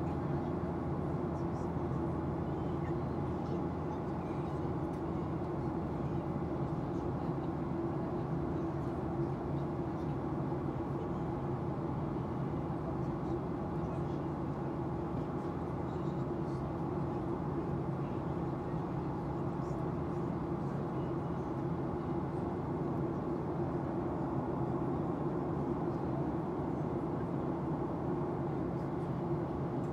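Steady engine and airflow noise inside the cabin of a Boeing 737-800 climbing after take-off, heard from a seat beside the wing and its CFM56-7B turbofan, with a constant low hum under an even rushing sound.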